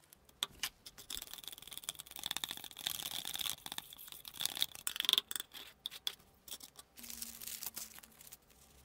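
A stick scraping round the inside of a thin plastic cup as a clear liquid is stirred: rapid, scratchy scraping with a high squeak running through it for about five seconds. About seven seconds in comes a shorter spell of rustling as paper and thin sheets are handled.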